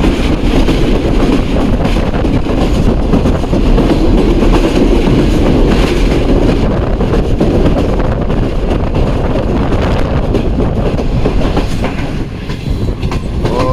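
Tezgam Express passenger train running along the line, its wheels clattering steadily over the rail joints with a dense rumble, heard from on board.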